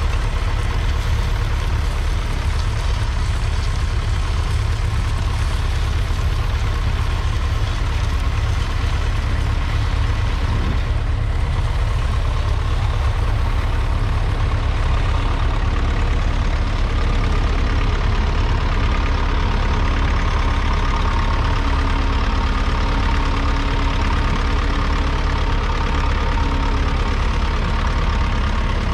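Allis-Chalmers ED40's 2.3-litre four-cylinder diesel engine running steadily under load while pulling a two-furrow trailed plough.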